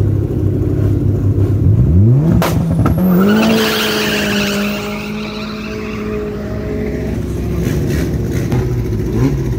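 Race car engine running low, then revving up sharply about two seconds in and holding high revs as the car launches hard, with a burst of tyre squeal; the engine note eases off a few seconds later.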